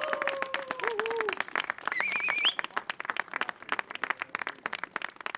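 Audience applause and clapping as a brass ensemble's last held notes slide down and die away in the first second. A short high-pitched call from the crowd rises about two seconds in. The clapping thins out toward the end.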